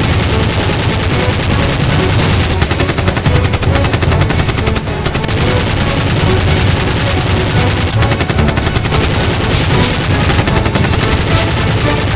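Rapid automatic gunfire sound effects, several long bursts of fast shots in quick succession.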